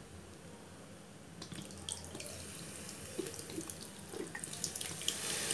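Thick crushed tomato glugging and splashing out of a glass jar into a pot, faintly. It starts about a second and a half in and grows louder, with small wet clicks.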